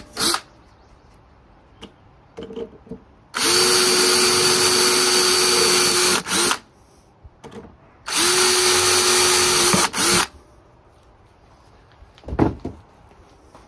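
Cordless drill boring through a brake lining block clamped to a steel brake band, marking the rivet holes. It runs steadily twice, for about three seconds and then about two, with a short knock near the end.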